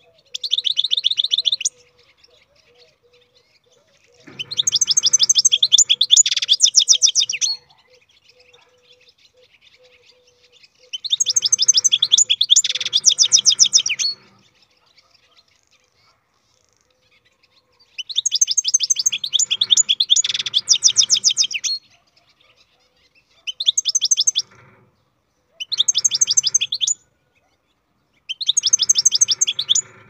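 European goldfinch singing: quick twittering trills in seven phrases of one to about four seconds, separated by short pauses.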